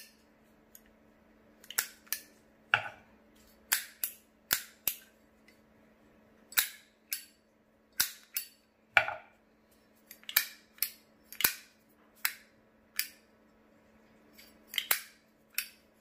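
Metal Zippo-style lighter cases holding butane torch inserts being flicked open and snapped shut, with the inserts' flip mechanisms clicking: a string of about twenty sharp metallic clacks at irregular intervals.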